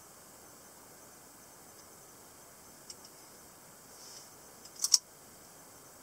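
Semiautomatic (spring-assisted) folding pocket knife being opened: a faint click about three seconds in, then a sharp double snap near the end as the blade springs out and locks open.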